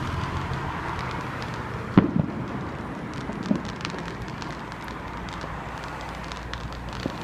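Fireworks going off: one sharp bang about two seconds in and a smaller pop a second and a half later, with faint crackling over steady outdoor background noise.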